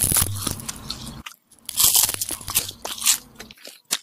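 Close-up crunching of a crisp sesame-filled seaweed sandwich snack as it is bitten and chewed, in two bouts with a short pause a little over a second in.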